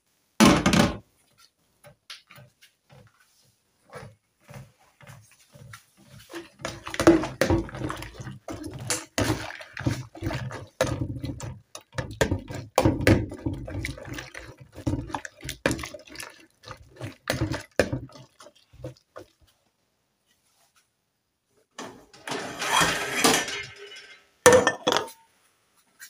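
A metal spoon stirring and washing small fish in hot water in a plastic bowl: many short clinks and scrapes with water sloshing, after a splash about half a second in. A short rush of water and a single knock come near the end.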